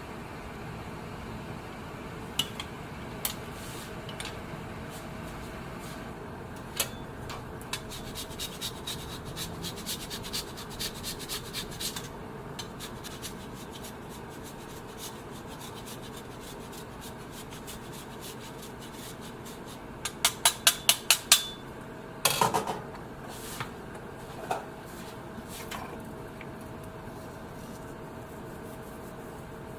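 Small hard objects being handled: scattered clicks and taps over a faint steady hum. About two-thirds through comes a quick run of sharp clicks, then a louder knock that rings briefly.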